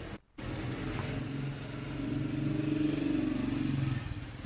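An engine's steady hum, getting louder through the middle and easing off near the end, after a brief dropout right at the start.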